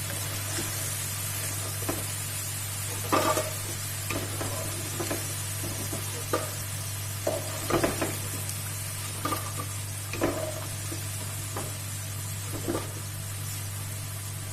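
Coated cauliflower pieces deep-frying in hot oil in a kadhai, a steady sizzle, with a metal spoon knocking and scraping against the kadhai about once a second as the fried pieces are lifted out. A steady low hum runs underneath.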